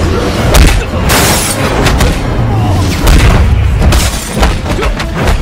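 Action-film fight soundtrack: a dramatic music score under a dense run of booming hits and crashes.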